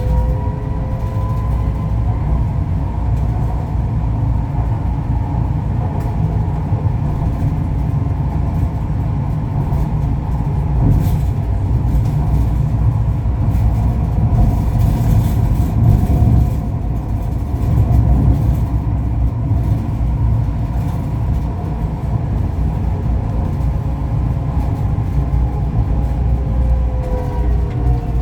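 Inside a Ui-Sinseol line light-rail car running between stations: a steady low rumble from the wheels on the track, with an electric motor whine that shifts in pitch near the start and again near the end.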